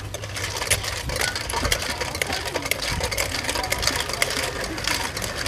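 Rapid, irregular clattering of utensils in a metal mixing basin as salad is tossed, over a low steady hum.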